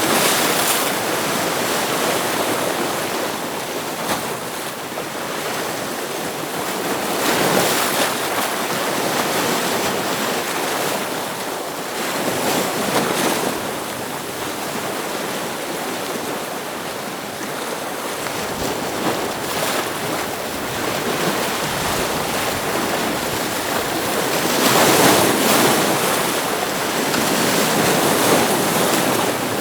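Ocean waves washing against rocks: a continuous surf hiss that swells as waves break, louder around 7, 13 and 25 seconds in.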